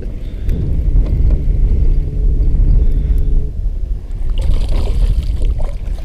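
Heavy wind buffeting and handling rumble on a phone microphone held close over open water. A steady low hum runs from about half a second to three and a half seconds in, and a short hiss comes about four and a half seconds in.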